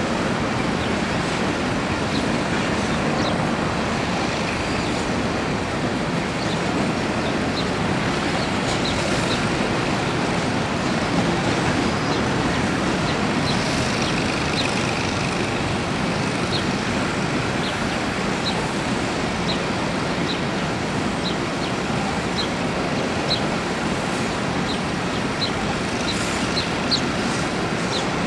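Empty coal hopper cars of a freight train rolling past at steady speed, their wheels on the rails making a constant rumble. Brief high squeaks come now and then, more of them in the second half.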